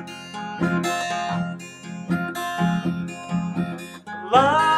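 Acoustic guitar strummed and picked in a steady rhythm between sung lines; a man's singing voice comes in near the end.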